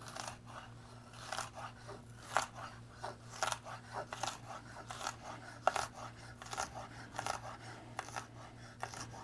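Chef's knife dicing red bell pepper on a wooden cutting board: a run of quick, uneven chopping taps, about three a second.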